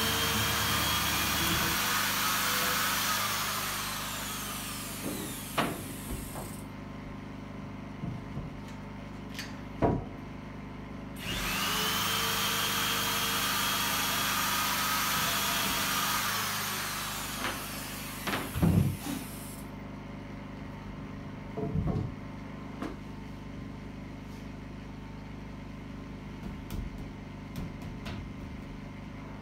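Electric drill boring into a wooden bed beam in two long runs of several seconds each, each winding down as it stops. Several sharp knocks of wood and tools come in between and after.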